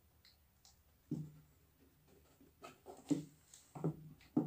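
Irregular knocks and rustles from handling a taped cardboard box and a clear plastic jar packed with dry grass nest material, starting about a second in.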